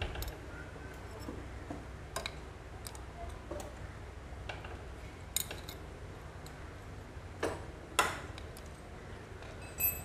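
Motorcycle clutch plates clinking as they are handled and slid by hand into the clutch basket: scattered light metal clicks, the loudest about eight seconds in.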